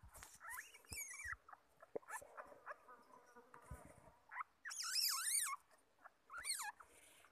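Asian palm civet kits squealing: three bouts of high, wavering calls that rise and fall in pitch, the longest and loudest about five seconds in, with scattered knocks and scrapes between them.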